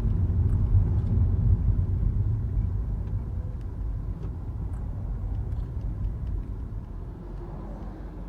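Low mechanical rumble from a car, fading gradually; the owner suspects it is an abnormal noise from the hydro-link unit.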